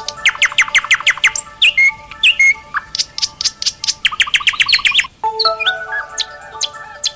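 Wake-up alarm of recorded birdsong: fast trills of down-sweeping chirps, several to a second, over a short rising run of held chime-like tones, repeating as a loop.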